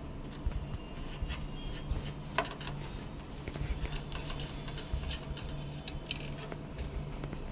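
Light scraping and scattered small clicks of epoxy being worked around a capillary tube joint on a freezer evaporator plate, over a steady low hum.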